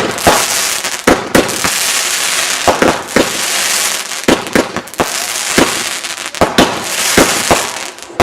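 Hurricane Excellent fireworks going off: an irregular run of sharp bangs, about two a second, over a steady high crackling hiss.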